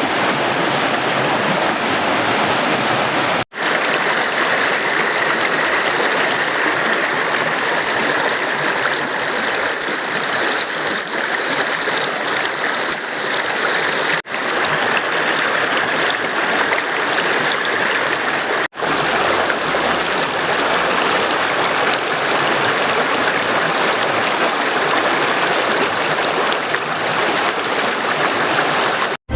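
Rushing water of a mountain stream, a steady loud rush broken three times by a brief dropout.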